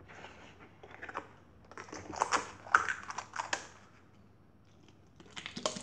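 Slime squished and pressed by hand, giving runs of small sticky clicks and pops in two bursts: about two seconds in, and again near the end.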